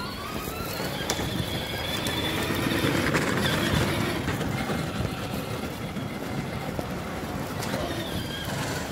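Children's battery-powered ride-on quad bike driving over paving stones: its electric motor whines and its hard plastic wheels rumble on the pavers, loudest about three to four seconds in.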